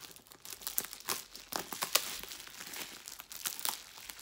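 Bubble wrap and plastic packaging crinkling and rustling as it is handled and pulled open, with a few sharper crackles in between.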